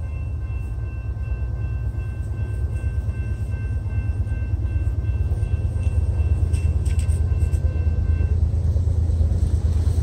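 Low rumble of an approaching diesel freight train, growing steadily louder, with faint steady high tones that stop about eight seconds in.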